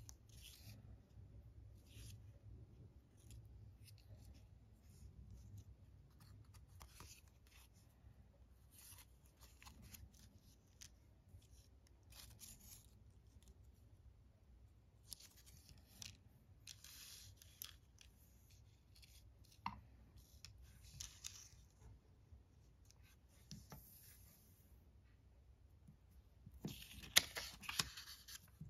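Faint rustling of paper being handled, the small folded paper wreaths turned over in the fingers, with louder crinkling near the end as a square sheet of origami paper is picked up and laid on the table.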